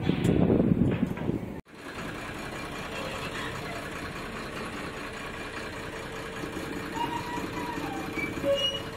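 Bharat Benz 4023 truck's six-cylinder diesel idling in neutral, heard from inside the cab, with one cylinder not firing: the misfire behind its low pickup. A louder, rumbling opening of about a second and a half ends in an abrupt cut to the steady idle.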